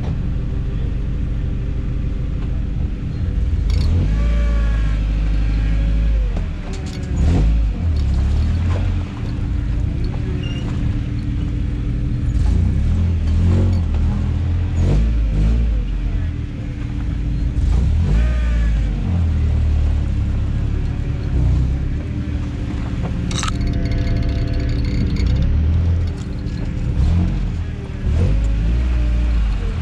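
Toyota truck engine running and revving unevenly as the truck crawls over a rough off-road trail, with a heavy low rumble that swells and falls and occasional knocks from the truck over the rough ground.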